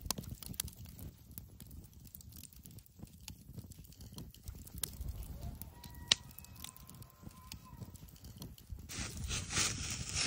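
Wooden skewers being worked through a trout fillet and handled, scattered sharp clicks and snaps over a low rumble. About nine seconds in, a campfire's crackling hiss comes up.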